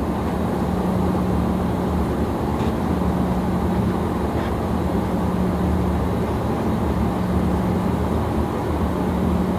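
Steady cabin noise of a private business jet: a constant rumble of engine and air with a low hum.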